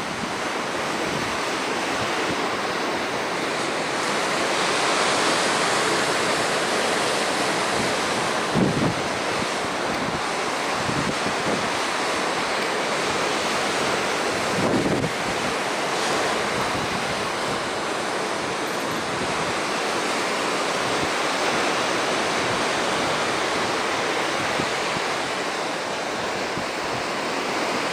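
Ocean surf breaking and washing onto the shore, a steady rush of whitewater, with wind buffeting the microphone.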